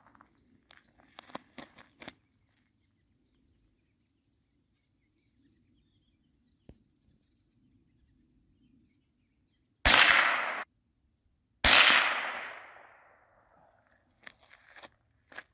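Two gunshots fired at a snowshoe hare, about two seconds apart; the second rings out and dies away over a couple of seconds. A few faint crunches on gravel come before them, near the start.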